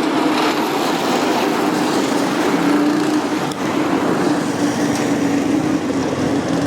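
Small engine of a cyclekart running at a fairly steady speed, its pitch wavering slightly.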